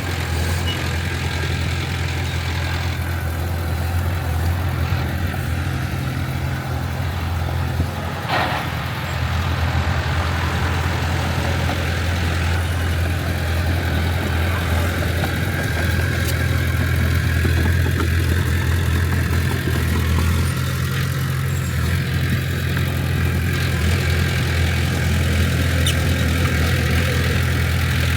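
Heavy diesel engine of earthmoving machinery running with a steady low drone, growing a little louder partway through. A brief sharp sound cuts in about eight seconds in.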